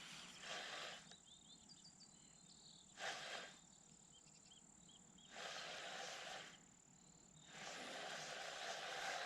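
Faint outdoor ambience: a rushing noise that swells and drops away several times, with a faint steady high tone and small high chirps in the quieter gaps between.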